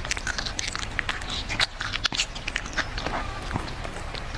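A cat chewing and biting into food, a quick irregular run of sharp crunches and clicks.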